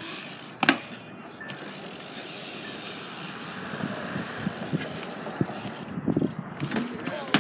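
BMX bike rolling on concrete: steady tyre noise, with the rear hub ticking as the rider coasts through manuals. A single sharp bang about half a second in is the loudest sound, and a few knocks come near the end.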